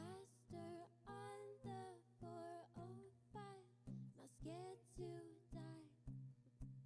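A woman singing live over an acoustic guitar strummed in a steady rhythm of about two strokes a second.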